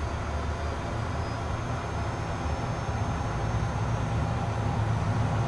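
Number 2 (right) turbofan engine of a Cessna Citation jet spooling up during a battery start, heard from inside the cockpit: a steady low rumble with a hiss that grows slowly louder as the engine lights off and its pressures and temperatures come up.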